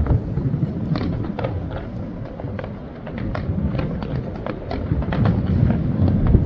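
Fireworks going off: a continuous low rumble of bursts with many sharp pops and crackles scattered through it.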